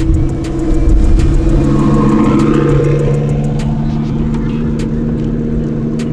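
Twin-turbo Lamborghini Huracán V10 running at low speed as it pulls away, its deep rumble swelling a second or two in and then easing as it moves off, with scattered sharp ticks over it.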